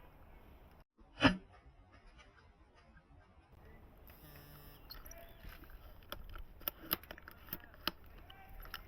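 An airsoft sniper rifle fires once with a sharp crack about a second in, followed by fainter scattered clicks over a low background.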